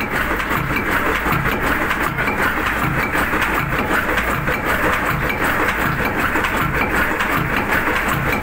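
Old slow-speed tugboat diesel engine, rated about 60 horsepower at 250 rpm, running steadily: a slow, even beat about one and a half times a second under a continuous clatter of its open rocker arms and valve gear.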